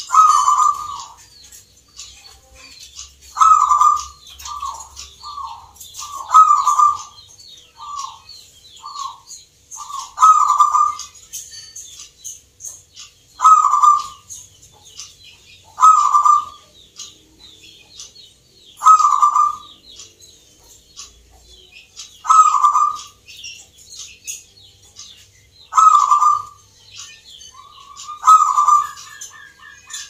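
Zebra dove (perkutut) cooing: about ten loud coo phrases, one every three seconds or so, with a run of short single coos between them in the first third. Faint high chirping from other small birds sits behind.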